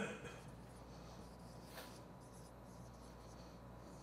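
Dry-erase marker writing on a whiteboard: faint squeaky, scratchy strokes, the loudest right at the start and more about halfway through.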